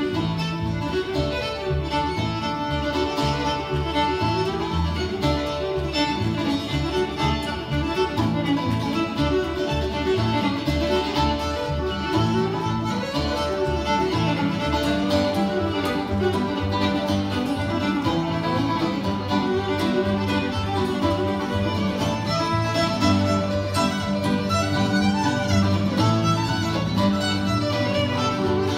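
Live acoustic string band playing with a steady beat: several fiddles bowing over strummed acoustic and archtop guitars, with a cello underneath.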